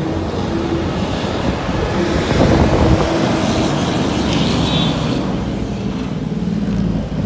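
Heavily loaded semi truck's diesel engine running under load, swelling loudest about two and a half seconds in.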